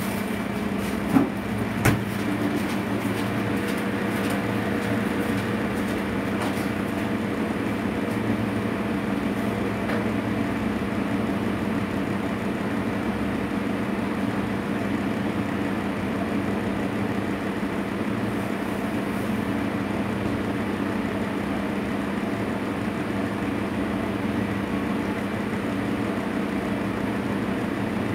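Steady machine hum, like a motor running in a kitchen, with two short knocks about a second and two seconds in.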